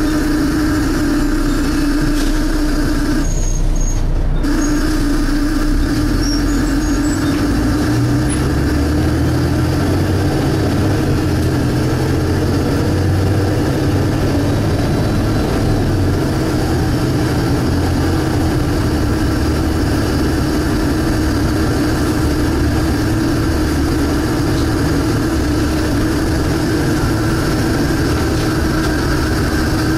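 Volvo B7TL double-decker bus heard from on board, its engine running with the loud steady suction noise over it; the suction tone cuts out for about a second some three seconds in. From about eight seconds the low engine note grows and changes as the bus pulls on.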